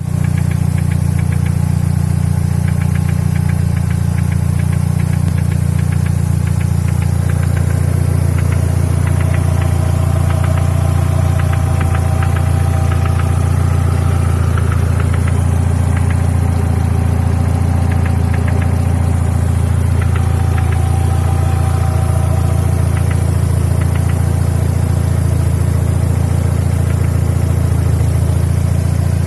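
Mercedes-Benz M111 four-cylinder petrol engine of a W124 E200 idling steadily, with a faint rapid ticking knock over the idle. The owner says the knock comes and goes and shows mostly when the engine is warm.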